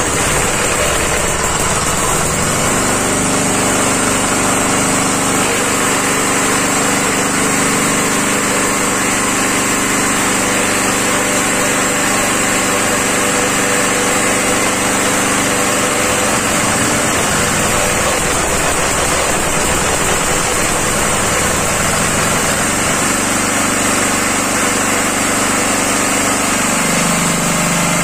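Vijay Villiers Mk12 single-cylinder air-cooled engine catching and running steadily. Its speed wavers about halfway through and settles lower near the end as the carburettor is adjusted with a screwdriver.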